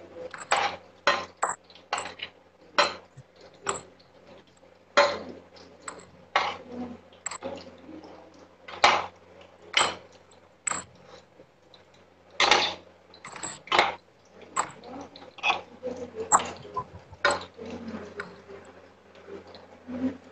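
A metal spoon clinks against a steel kadai and bowls while besan bhallas are deep-fried. The knocks are sharp and irregular, about one or two a second.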